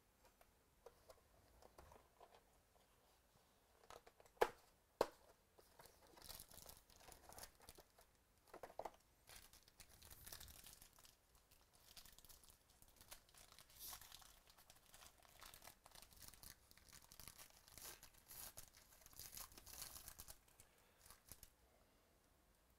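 Foil wrapper of a trading-card pack being torn open and crinkled by hand, a long run of faint crackling that stops shortly before the end. It comes after two sharp clicks about four and a half and five seconds in, which are the loudest sounds.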